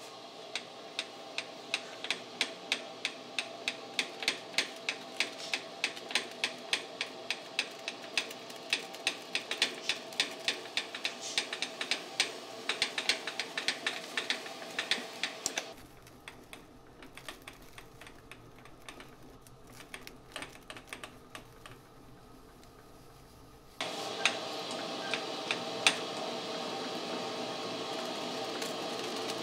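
Metal lathe turning a metal bar while the cutting tool takes a cut, with sharp ticks about two to three a second over its steady running sound. The ticking thins out about halfway through, and for the last few seconds the running sound is suddenly louder.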